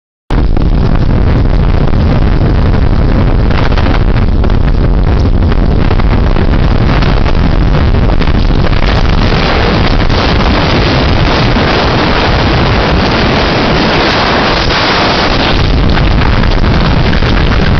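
Violent tornado wind blasting straight into the microphone: loud, continuous wind buffeting with a deep rumble that never lets up.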